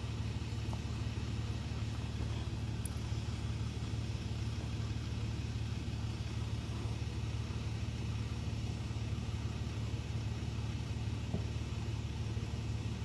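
A 4WD's engine running steadily at low, even revs, a constant low rumble that neither rises nor falls.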